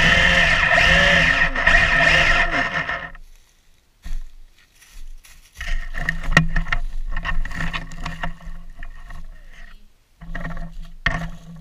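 Electric drive motors and gearbox of an RC tank whining as it runs, with the tracks crackling and rustling over dry leaf litter. The drive cuts out about three seconds in and then runs again in short stop-and-start spells, with a pause near the end.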